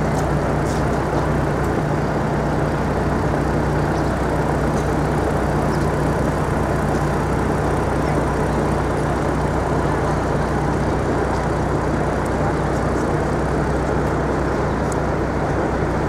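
A heavy engine running steadily, a constant low hum under continuous city street noise.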